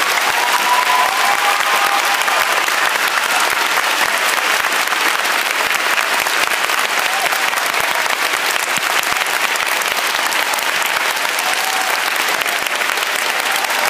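Theatre audience applauding: steady, dense clapping from many hands.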